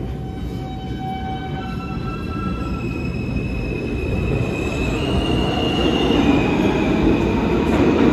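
New York City subway train running, getting steadily louder, with a rumble under several high steady whining tones that come in one after another, each higher in pitch than the last.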